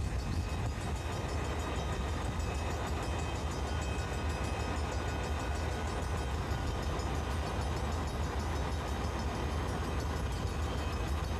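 Diesel locomotives of a stopped Burlington Northern train idling, a steady low rumble.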